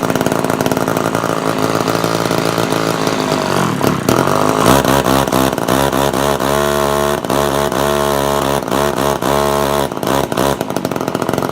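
Homelite Big Red XL chainsaw's two-stroke engine running. About four seconds in its speed sags and then picks up, running higher and unevenly, and it cuts off suddenly at the end. The owner finds the chain bound up a little.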